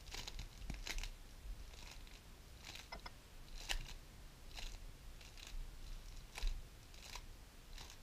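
GAN 11 M Pro magnetic speedcube being turned by hand: a string of faint, short plastic clicks and swishes, roughly one layer turn a second, as an algorithm is executed.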